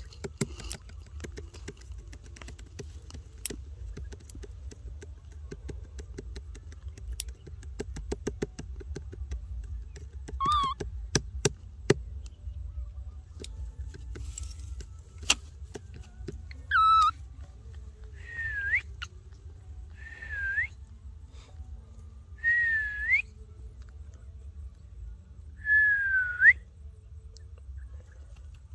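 Baby macaque giving about six high, whistle-like coo calls, each dipping and then rising in pitch, spread through the second half. Before them comes a run of short, faint clicks.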